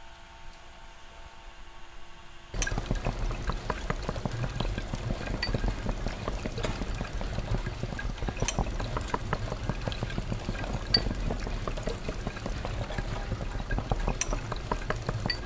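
Faint steady hum, then about two and a half seconds in, rain sets in suddenly: a dense patter of drops and drips with a low rumble underneath.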